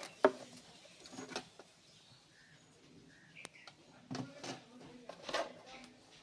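A few scattered knocks and clicks, the loudest about a quarter second in, with faint short bird chirps between them.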